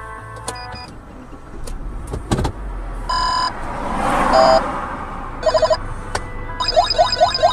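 A vehicle passes close by, its noise swelling and fading about four seconds in, with a sharp knock shortly before. Electronic beeps and a quick run of rising chirps sound over steady held tones.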